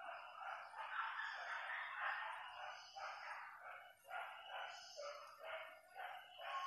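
A pack of hunting dogs barking and baying over one another, the barks overlapping almost without a break.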